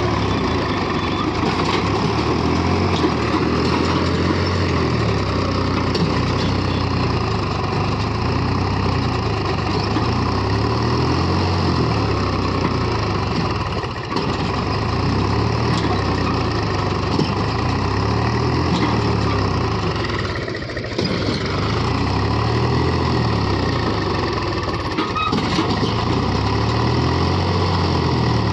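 Farm tractor's diesel engine running steadily under load as it strains to pull a loaded trolley out of soft ground, easing off briefly twice.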